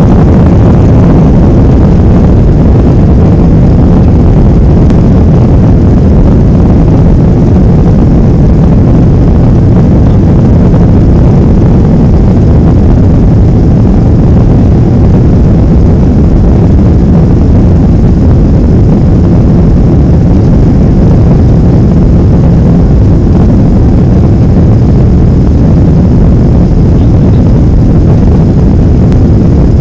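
Cabin noise of a Boeing 767-300ER climbing after takeoff: its jet engines and the airflow heard from inside the cabin as a loud, steady low rumble.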